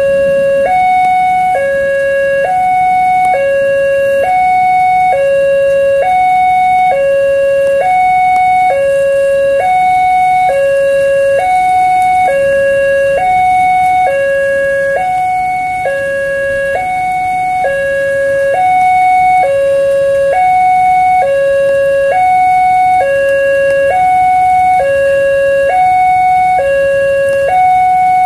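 Level-crossing warning alarm at a railway crossing, an electronic two-tone signal switching steadily between a lower and a higher note, each held just under a second. It sounds while the barrier is down and the red lights flash, warning that a train is approaching.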